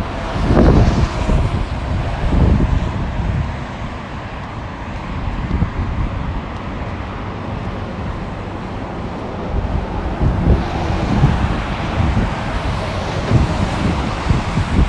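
Wind buffeting the phone's microphone in uneven low gusts, over the steady noise of road traffic; a vehicle swells past about ten seconds in.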